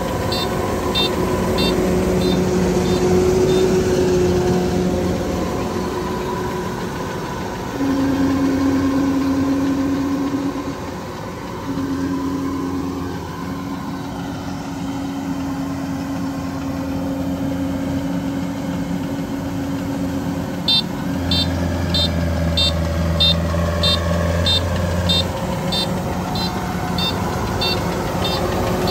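Kubota DC-93 combine harvester running steadily under load as it cuts and threshes rice, its engine note shifting now and then. A short high beep repeats about twice a second at the start and again through the last several seconds.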